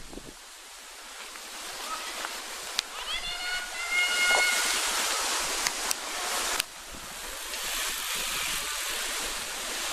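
Gusting wind hissing over the microphone and through the trees, swelling and fading, with a short high-pitched sound about three seconds in as a cyclo-cross rider passes.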